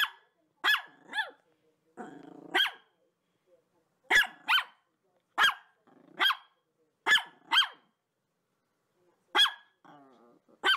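Labrador retriever barking in play, about a dozen short, sharp barks at uneven intervals, often two close together.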